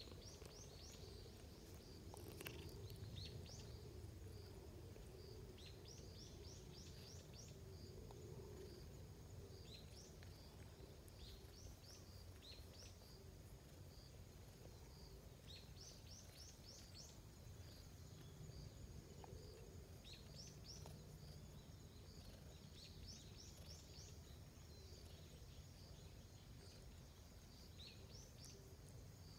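Quiet outdoor ambience: faint bird chirps, short rising notes in quick runs of three to five that recur every few seconds, over a low steady rumble. A brief faint scuff about two and a half seconds in.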